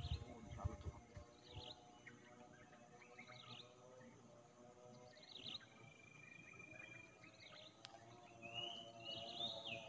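Faint outdoor bird calls: short chirps repeating about once a second, with a longer held whistle in the middle and a few rising notes near the end.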